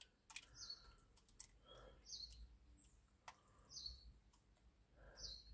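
Faint sounds of hens feeding: scattered sharp clicks of beaks pecking at food in a plastic dish. A short, high, faint chirp repeats about every second and a half.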